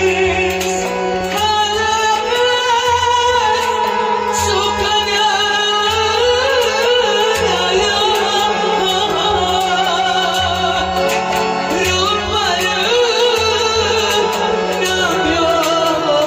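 A male singer singing a Kashmiri song in long, wavering, ornamented phrases, over a steady low accompaniment with a repeating beat.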